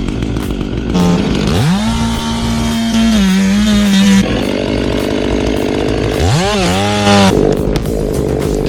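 Chainsaw revved twice from low speed up to full throttle, each time held for about two to three seconds before dropping back, over a steady lower drone.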